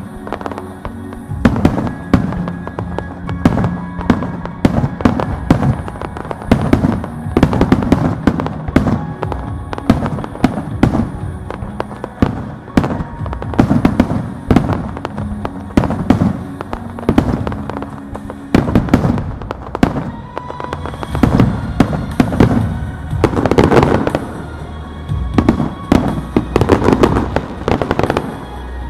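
Aerial fireworks bursting in rapid, irregular succession, many sharp bangs each second, with the densest and loudest barrage near the end. Music plays steadily underneath.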